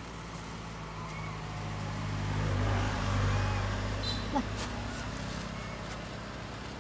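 A motor vehicle's engine running, its low hum growing louder toward the middle and then easing off, like a vehicle passing close by. There is a brief sharp sound a little after the halfway point.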